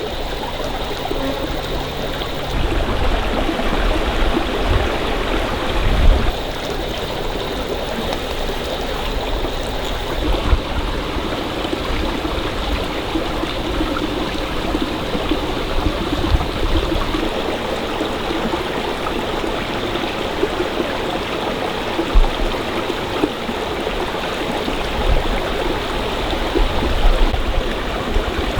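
A stream flowing over rocks, a steady rushing and gurgling of water. Twice, at about six seconds and again near the end, a brief low thump rises above it.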